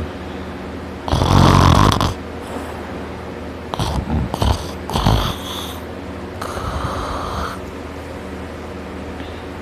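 A person sleeping on his back, snoring heavily. There is one loud snore about a second in, a few short ones in the middle, and a longer, softer snore later on.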